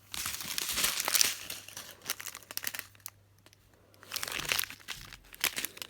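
Small plastic packets of diamond-painting drills crinkling as they are handled, in two spells, with a quieter gap between.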